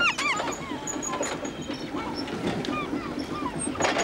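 Forklift driving across the yard with its motor running steadily, while gulls call over it in short arched cries, several at once near the start and a few more later.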